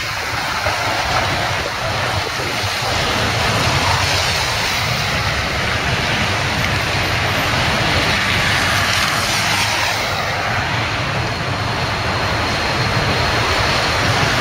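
Strong typhoon wind blowing steadily with gusts, rushing loudly and buffeting the microphone with a deep rumble.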